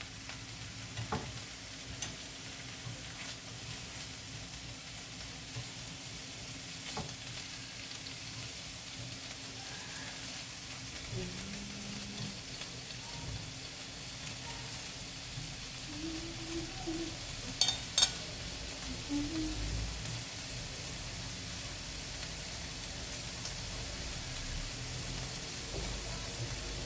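Pieces of fatty meat sizzling steadily in oil in a nonstick frying pan, stirred with wooden chopsticks that clack against the pan now and then. The loudest clacks are two close together about two-thirds of the way in.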